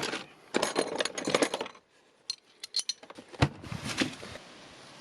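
Handling noises: several light metallic clinks, then a single sharp knock followed by a couple of duller thuds.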